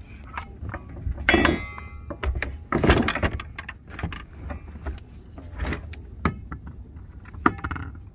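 Knocks and metal clanks of fishing gear handled on a small fiberglass boat's deck: a rusty rebar grapnel anchor, rope and a buoy, over a steady low rumble. One clank about a second and a half in rings briefly, and the loudest knocks come about three seconds in.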